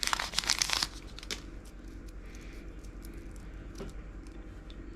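Packaging crinkling and rustling for about the first second as small craft pieces are taken out, then only a few faint clicks of handling.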